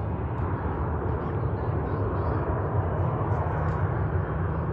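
Boeing 737-800's CFM56 jet engines running at taxi power, a steady low rumble with a hiss over it, heard from a distance.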